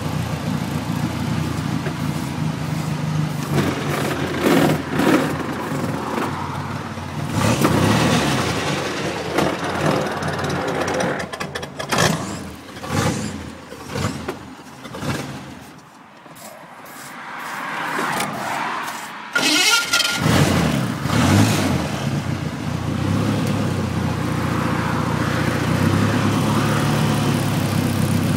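Brasier veteran racing car's engine running, with uneven bursts of revving. Just past halfway it falls away for a few seconds, then picks up again.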